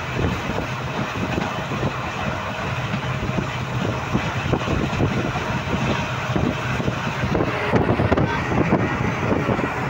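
Express train running at speed, heard from on board: wheels clattering irregularly over the rails over a steady low rumble, slightly louder near the end.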